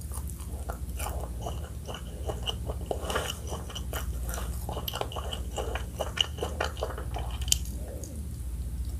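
Biting and chewing crispy fried chicken, a dense run of short crunches that thins out near the end, over a steady low hum.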